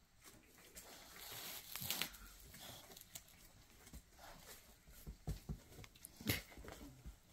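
Soft rustling and crinkling in a puppy pen, with a few light clicks and knocks about five to six and a half seconds in.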